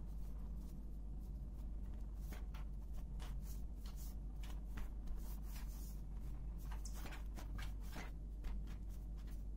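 Hands brushing flour across a tabletop and rolling soft dough into a log: a scatter of short, soft scrapes and rustles. A steady low hum runs underneath.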